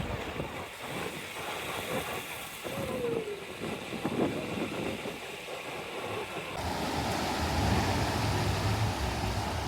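Steady rushing noise of wind and sea, as heard from a ship under way. About two-thirds of the way through, the sound changes abruptly to a denser rush with a low hum underneath.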